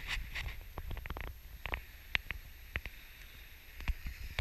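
Low wind rumble on the microphone, with scattered sharp clicks and taps and a faint hiss.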